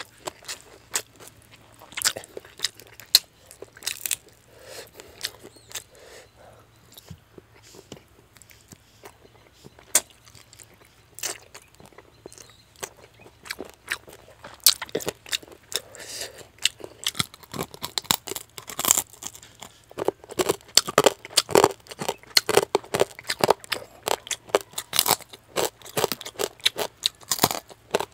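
A person chewing mouthfuls of rice and fish head curry, with wet mouth clicks and crunching. The sounds come sparsely at first and grow much denser and louder in the second half.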